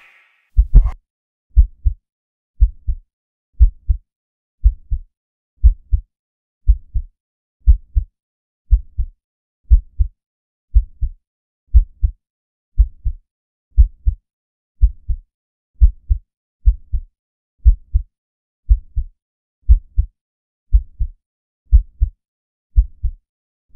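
Heartbeat sound effect: a steady lub-dub double thump about once a second, low and dry, with silence between beats.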